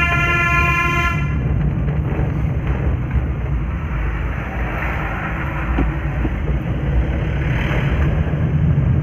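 A vehicle horn sounds one long, steady tone and cuts off about a second in. After that comes steady engine and tyre rumble heard inside a moving car's cabin. An oncoming bus passes close about four to five seconds in.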